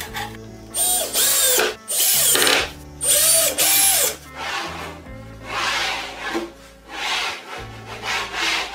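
DeWalt 18 V cordless drill-driver driving screws into a plywood cabinet in three short bursts, its motor whine rising and falling with each. After that comes a run of softer rubbing strokes on wood.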